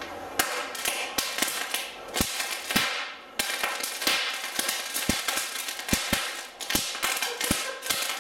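Oxyhydrogen (HHO, Brown's gas) bubbles from water electrolysis popping as a blowtorch flame ignites them at the water's surface: a rapid, irregular run of sharp bangs, about three a second, over the steady hiss of the torch.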